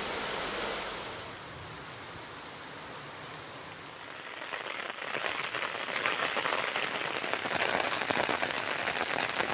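Heavy rain falling, a steady hiss. It drops quieter about a second in, then from about halfway grows louder into a dense patter of drops.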